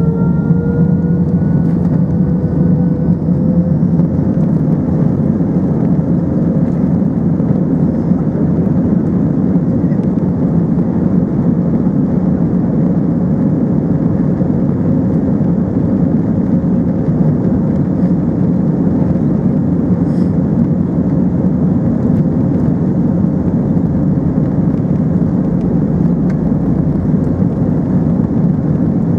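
Airbus A320 jet engines and airflow heard from on board at takeoff: a steady, loud rush of noise, with a faint whine rising in pitch over the first few seconds as the engines spool up.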